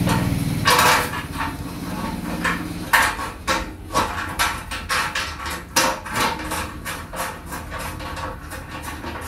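Small metal clinks and knocks as a bolt and nut are fitted by hand into the steel side leg and brace of a treadle sewing-machine stand. It is an irregular run of short taps, more frequent from a few seconds in.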